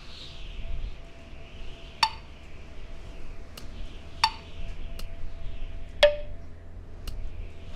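Animated magic sound effects: three sharp zaps about two seconds apart, each dropping quickly in pitch to a short ringing tone, with two fainter ticks between them, over a steady airy hiss.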